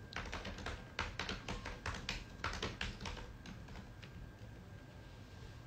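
Light, irregular taps and clicks of fingers on a phone being handled, a quick run of a dozen or so over about three seconds that then dies away.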